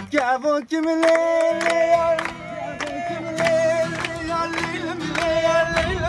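Acoustic guitar strummed in a steady rhythm while a man sings a folk song, with a brief break about half a second in. Others join in and clap along.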